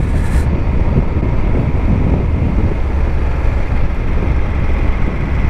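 Moto Guzzi Griso 1200's transverse V-twin running steadily as the bike cruises, mixed with wind rushing over the bike-mounted camera's microphone.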